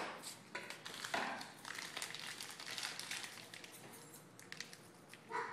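Kitchen utensils and a dish being handled while serving pasta: irregular light clicks and scrapes that thin out after about four seconds.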